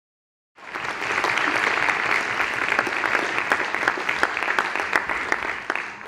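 Audience applauding: many hands clapping at once, starting about half a second in and dying away near the end.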